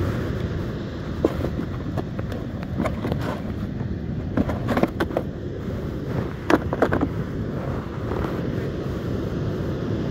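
Wind rumbling on the microphone over breaking surf. Scattered clicks and rustles sound close by as hands handle a bait fish and tackle over a plastic cooler box, most of them between about one and seven seconds in.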